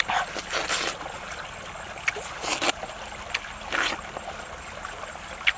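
Watermelon being bitten into and chewed: a string of short, wet, crunchy bites and slurps of juicy flesh, about seven in all, some in quick pairs.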